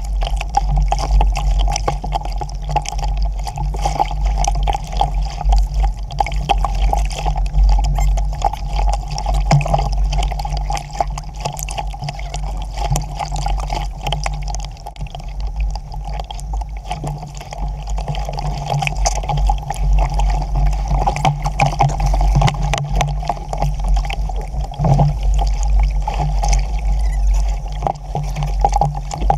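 Lake water sloshing and splashing over the deck and against the hull of a small Sabot sailboat that is swamped, with many small irregular splashes over a steady low wind rumble.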